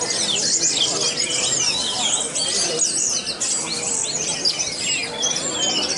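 Caged orange-headed thrush singing a fast, continuous run of chirps and whistled phrases, with other birds' calls overlapping it.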